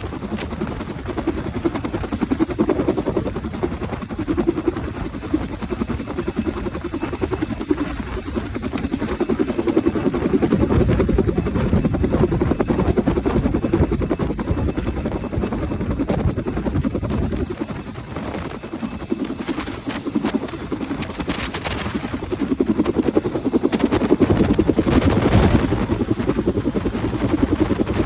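Rescue helicopter's rotor chopping steadily, with louder rushes of air noise on the microphone about three-quarters of the way in and again near the end.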